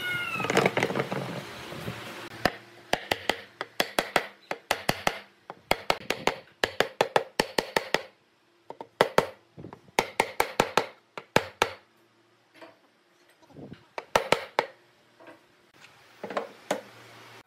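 A cat meows once right at the start. Then come many sharp knocks of wood on wood in quick clusters with short pauses between, as the slotted legs of a small wooden stool are fitted into the slots of its round top.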